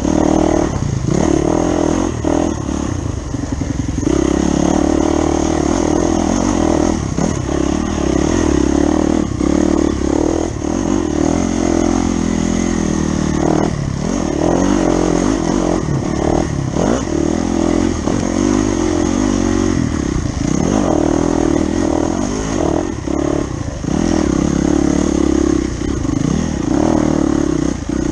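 Off-road motorcycle engine running hard along a rough dirt trail, its revs rising and dropping again and again with throttle and gear changes. Scattered knocks come from the bike over the stony, rutted track.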